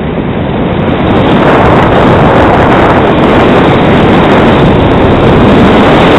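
Loud, steady rush of wind over the microphone of a camera carried down a ski slope, mixed with skis sliding over groomed snow; it builds over the first second as the skier picks up speed.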